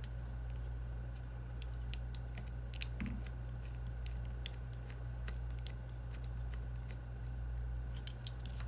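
Scattered light clicks and taps of small repair tools on the iPhone's internal parts while a screw standoff is being refitted. A steady low hum runs underneath.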